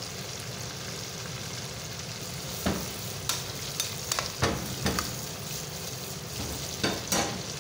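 Chicken pieces sizzling in hot oil, frying uncovered until golden. A slotted spoon stirs them, and from about two and a half seconds in it clinks and scrapes against the pan several times.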